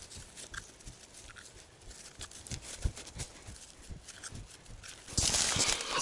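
Quiet, scattered light clicks and knocks of thin wooden sticks being handled and fitted together into a stick-cage trap, with a louder rustle about five seconds in.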